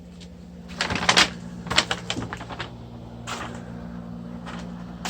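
A handful of short, sharp knocks and scrapes, the loudest about a second in, over a steady low mechanical hum.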